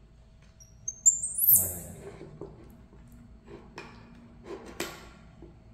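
Baby monkey giving a loud, very high-pitched squeal that rises in steps about a second in, followed by a couple of sharp clicks of a metal spoon against a ceramic porridge bowl.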